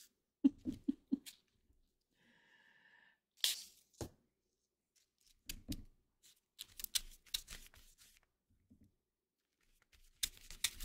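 Flat paintbrush brushing and dabbing on watercolour cardstock in short, scratchy strokes, with a few light knocks against the desk.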